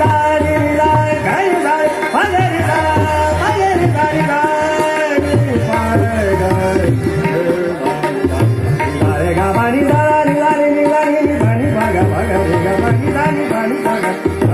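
Hindustani classical vocal in raag Hansadhwani: a male singer's gliding melody over a harmonium, with tabla playing a steady beat and deep bass strokes.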